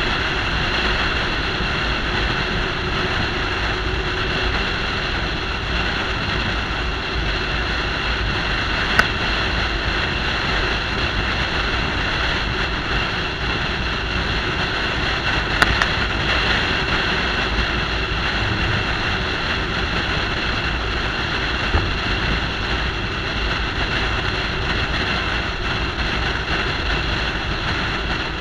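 Steady wind rush and road noise from a truck driving at highway speed, picked up by a camera on its hood. A few brief clicks come through, about nine seconds in and again around sixteen.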